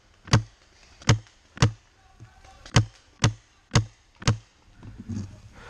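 Tippmann TMC magfed paintball marker firing seven single shots in quick uneven groups, each a sharp crack about half a second to a second after the last.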